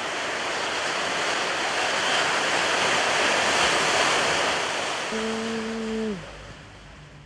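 Sea water rushing and churning in a boat's wake, loud and steady. About five seconds in a horn sounds once for about a second, its pitch sagging as it stops, and the water noise then drops away to a low steady hum.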